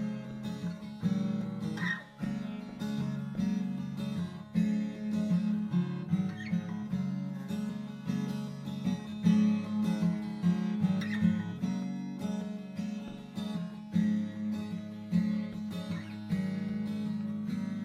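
Background music: acoustic guitar picked and strummed.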